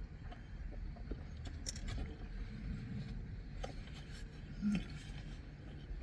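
Quiet chewing of a crusty toasted baguette sandwich inside a car cabin, with a few faint clicks and smacks over a low steady rumble. A short low hum sounds briefly a little before the end.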